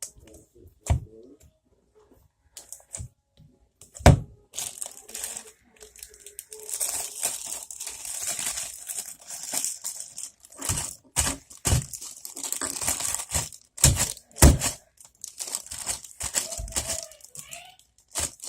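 Slime being squished and stretched by hand, a sticky crackling with sharp wet pops and clicks. It is sparse at first and turns into near-continuous crackling from about six seconds in.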